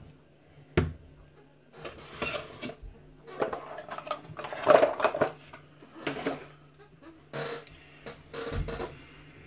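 Thin metal shim being worked out of a tight pin-tumbler lock cylinder: a sharp click about a second in, then repeated short bursts of metallic scraping and clinking.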